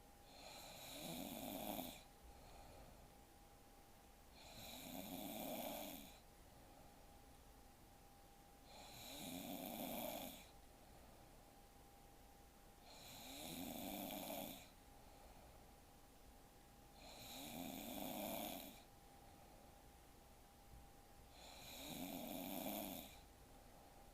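A sleeping woman snoring in a regular rhythm: six snores about four seconds apart. Each swells over a second or two, then breaks off sharply.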